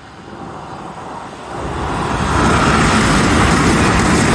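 Amtrak Acela high-speed passenger train approaching and passing at speed: a rushing noise of wheels on rail and moving air swells over about a second, then stays loud and steady.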